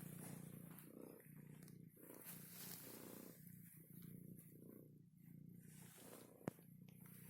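Domestic cat purring softly, the purr swelling and easing about once a second as it breathes in and out while being touched. A single sharp click near the end.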